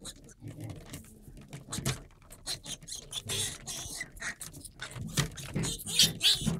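Piglets suckling from teat bottles, a rapid irregular run of wet smacking and slurping clicks. Hooves and bodies scuffle in the straw, with a louder burst about six seconds in.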